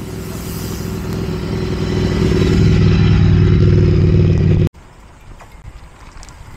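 A motor vehicle's engine running close by, growing louder over the first couple of seconds, then cutting off abruptly about two-thirds of the way through, leaving faint road noise.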